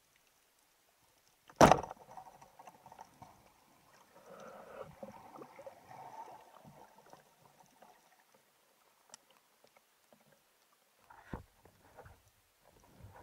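A band-powered speargun firing underwater: one sharp, loud clack about one and a half seconds in. Water sloshing and bubbling follows as the diver reaches the surface, and there is a smaller knock near the end.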